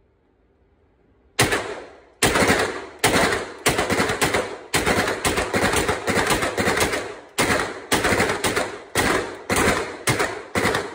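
Grand Power Stribog SP9A1 9mm firing a long string of about twenty semi-automatic shots in an indoor range, starting about a second and a half in at roughly two to three shots a second. Each report echoes off the range walls.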